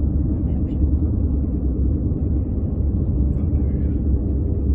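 Steady low rumble of a car driving, with road and engine noise heard from inside the cabin.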